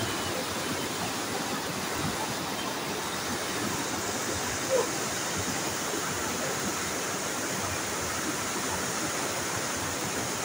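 A waterfall's falling water making a steady, even rush. About halfway through there is one brief, short sound over it.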